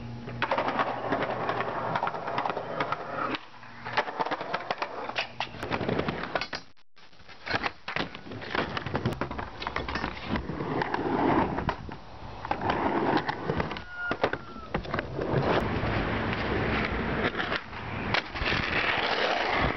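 Skateboarding: urethane wheels rolling on concrete and asphalt, broken by the sharp pop of tricks and the clack of the board landing and hitting ledges. It comes as several short clips, with an abrupt break about seven seconds in.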